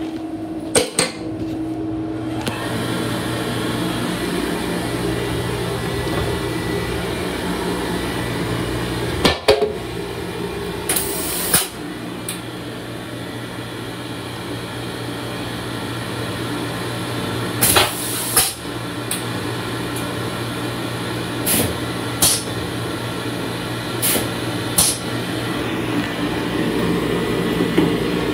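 Nova stainless-steel hand dryer starting about two seconds in and blowing steadily, over a low hum, with a few sharp knocks scattered through.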